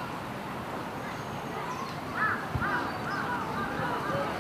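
A bird calling in a quick series of short, arched notes, starting about halfway through, over steady outdoor background noise.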